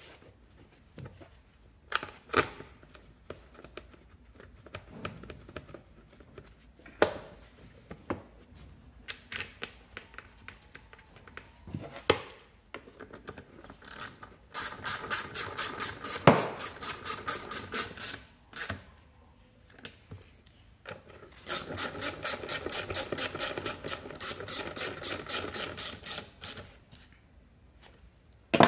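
Hand ratchet clicking quickly and evenly, about ten clicks a second, in two runs of a few seconds, one about halfway through and a longer one later, as screws holding a plastic engine cooling shroud are driven. Scattered knocks and clicks of tools against plastic and metal come before them.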